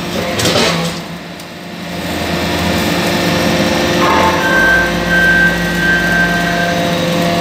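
Hydraulic metal-chip briquetting press running, its hydraulic pump and motor giving a steady hum with a few clanks near the start. About four seconds in the sound deepens and a thin whistle appears as the ram comes down.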